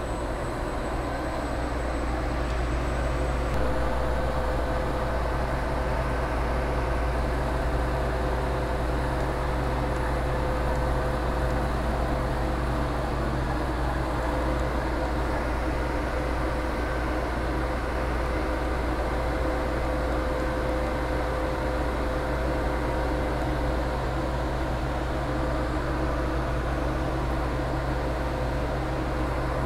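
Steady low machinery hum with a thin steady whine, from the powered-up CNC bridge saw with its blade stopped.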